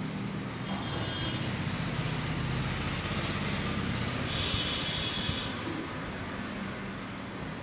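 Steady background noise of road traffic, with two brief faint high tones, about a second in and again around four and a half seconds in.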